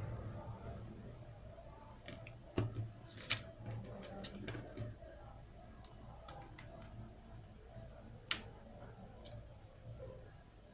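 Light, scattered clicks and taps of small tools and parts being handled on a smartphone during a battery replacement, a handful spread over several seconds, over a faint steady low hum.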